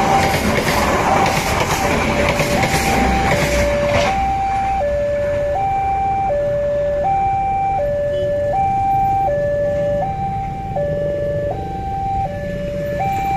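Passenger train carriages rolling past with wheel clatter for about the first four seconds. Under it and then alone, a railway level crossing's electronic warning alarm alternates between a high and a low tone, each about three quarters of a second long, signalling that the crossing is closed. The alarm cuts off just before the end.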